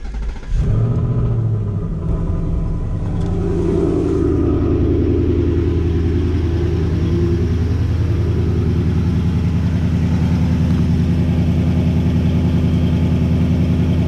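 2024 Mustang GT's Gen 4 Coyote 5.0 V8 starting up after an oil change, with a short flare in revs as it fires. It then settles into a steady idle.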